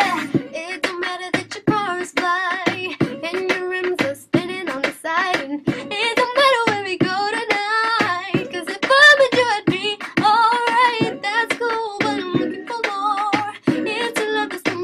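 A young woman singing solo, a pop-R&B melody with wavering held notes and quick runs; she is a little sick by her own account.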